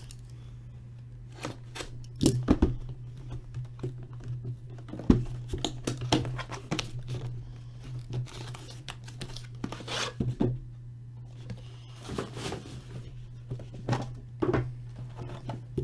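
Plastic wrapping and cardboard packaging of sealed hockey card boxes being torn open and crinkled, in irregular rustles and sharp clicks, over a steady low electrical hum.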